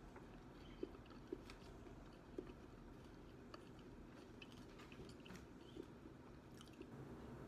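A person chewing fried chicken with the mouth closed: soft and faint, with a few short sharp clicks and smacks now and then.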